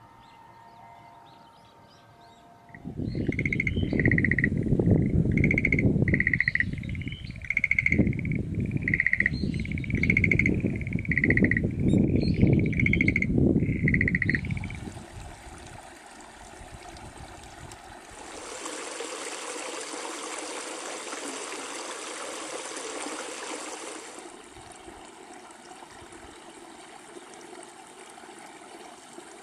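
Outdoor ambience. Near the start a loud, gusty low rumble sets in, overlaid for about ten seconds by an animal call of short high chirps repeated roughly every 0.7 s. After that the rumble drops away and a steady rushing hiss takes over, easing off near the end.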